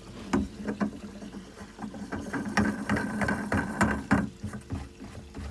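Quick irregular clicks and knocks of plastic pipe fittings being handled against a plastic filter barrel while a nut is fitted onto a tank connector at its back, busiest in the middle, over a steady low hum.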